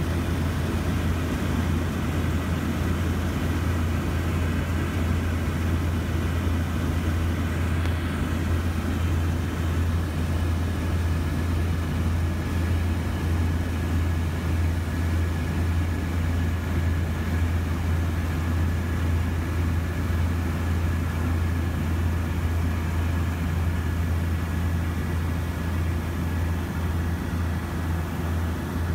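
Steady drone of a DHC-6 Twin Otter turboprop in flight, heard from inside the cabin: a deep, even hum of propellers and engines with air rushing past.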